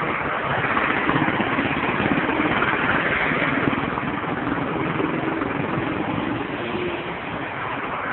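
Road traffic: cars driving past, a steady wash of engine and tyre noise.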